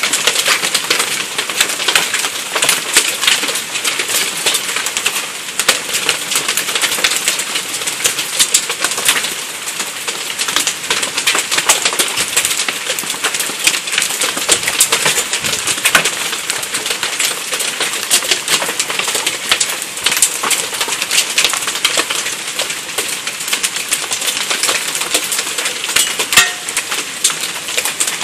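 Hail pelting a wooden deck and patio furniture: a steady, dense clatter of countless sharp ticks and clicks, most from pea-sized stones with some nearly ping-pong-ball size.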